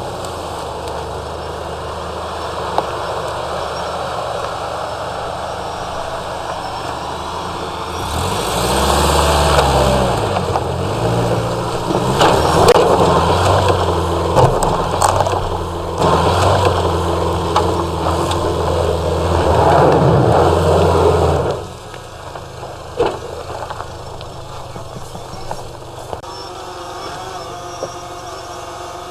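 Subaru engine running steadily, then about eight seconds in revving hard and surging up and down under full load for about thirteen seconds, with tyres scrabbling and knocks as it claws up a steep dirt hill climb. Near the end it drops back to a quieter steady run.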